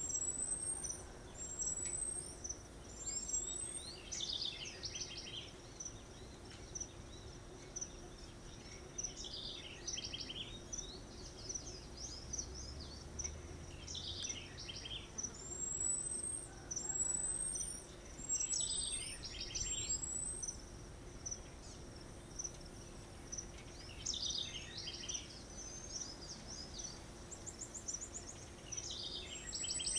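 High-pitched animal calls: short rising whistles in runs of three or four, and clusters of rapid chirps every few seconds, over a steady thin high-pitched whine.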